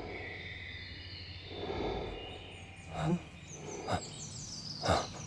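A man's heavy, laboured breathing: short gasping breaths about once a second, growing louder from about three seconds in. Over the forest background, a bird sings a high, falling trill near the end.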